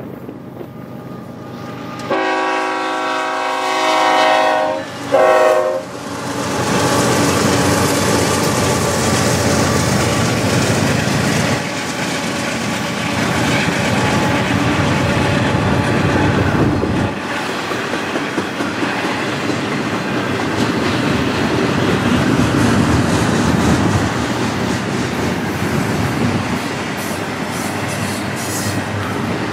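Diesel freight locomotive's air horn, several notes sounding together: one long blast about two seconds in, then a short one. The train then passes close by: the locomotives' engines rumble for about ten seconds, followed by the freight cars rolling and clacking over the rails.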